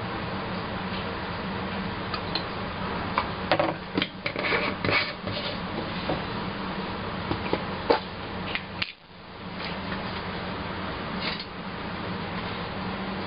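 Cups and utensils being handled, with a few light clinks and scrapes clustered a few seconds in and again near the end, over a steady low hum. Just before the middle the sound briefly drops out.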